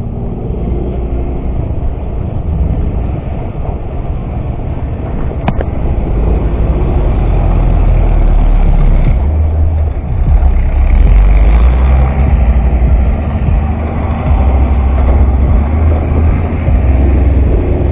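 Yamaha X-Ride 125 scooter's single-cylinder engine running as it rides over rough dirt, under a heavy low rumble that grows louder about six seconds in. One sharp click about five and a half seconds in.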